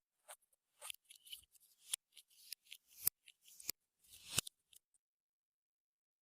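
Clear slime being worked by hand, giving an irregular run of sticky crackles, clicks and pops that stop about five seconds in.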